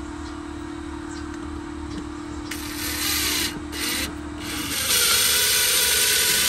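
Cordless drill/driver driving stainless steel screws through a hose faucet's mounting flange into the wall: a few short bursts about two and a half seconds in, then one longer steady run of about two seconds near the end.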